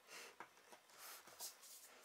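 Faint handling of wood: soft rubbing and swishing as a square wooden leg is pressed onto a dowel joint, with one light tap about half a second in.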